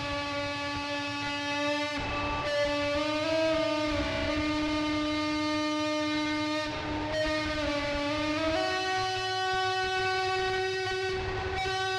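Instrumental music of long, sustained droning notes, each held for several seconds over a low rumbling layer, stepping up in pitch about two-thirds of the way through.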